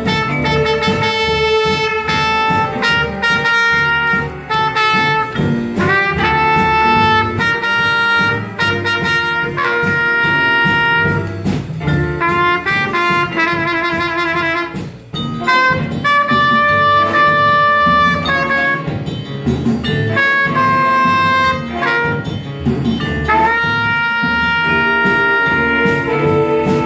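Student jazz big band playing, with a trumpet improvising a solo over saxophones and rhythm section. About halfway through, the solo line wavers quickly in a trill-like shake.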